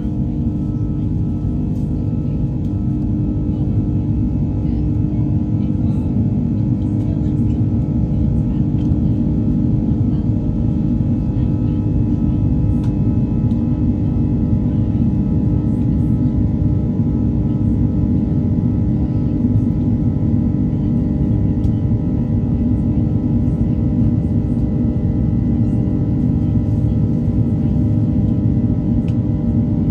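Airbus A330's Rolls-Royce Trent 700 turbofans heard inside the cabin at reduced climb thrust after take-off: a steady drone with a constant hum and a low rumble.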